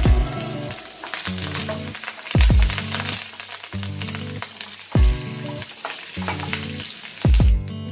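Tempering of curry leaves, sliced onion, urad dal and fenugreek seeds sizzling in hot oil in a pan, stirred with a wooden spoon. Background music with a low beat that thumps about every two and a half seconds plays over it.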